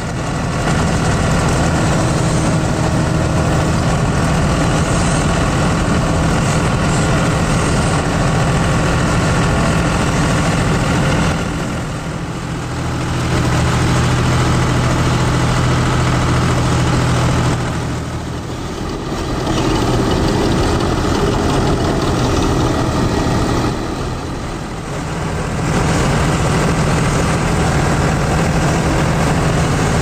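John Deere 5310 tractor's three-cylinder diesel engine running steadily while it powers a tractor-driven Standard TSC 513 combine harvester cutting paddy. The sound falls away briefly three times.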